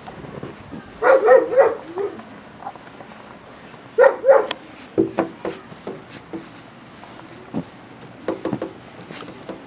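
Dog barking: a quick run of about four barks about a second in, then two more about four seconds in, with fainter short sounds after.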